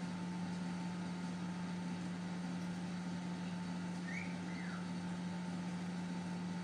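Steady low hum of a running motor, even and unchanging throughout. Two faint short chirps come about four seconds in.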